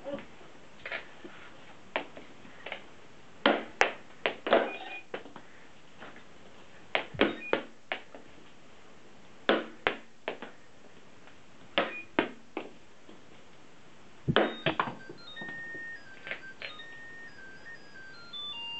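Balls knocking against the plywood clown-face target of a homemade Arduino ball-toss game, each hit a short cluster of knocks, some followed by a short electronic beep from the game's small speaker. From about three-quarters of the way in, the speaker plays a short tune of stepped beeps at changing pitches, the game's end-of-game signal on reaching 50 points.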